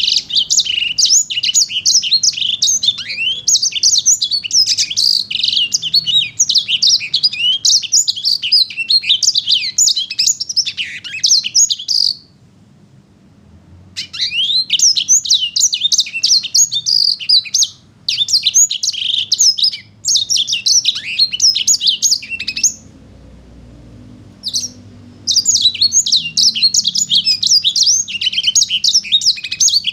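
A sanger paud songbird singing in full voice: a fast, high, chattering song in long phrases, broken twice by a pause of about two seconds.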